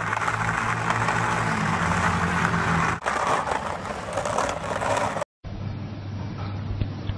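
Hard skateboard wheels rolling over rough asphalt as a small dog pushes the board, a steady rolling noise. About five seconds in it cuts off, and a quieter low hum follows.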